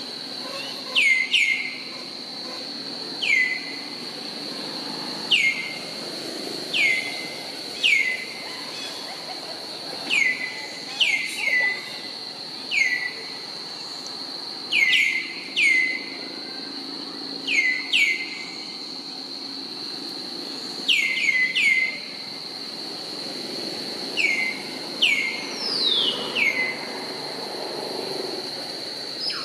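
A bird calling repeatedly with short, falling whistles, often in pairs, every second or two, over a steady high-pitched insect drone.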